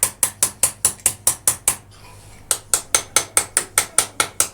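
Ratchet wrench clicking steadily, about four clicks a second, as it turns the nut on a battery terminal clamp; the clicking stops for about half a second around two seconds in, then carries on.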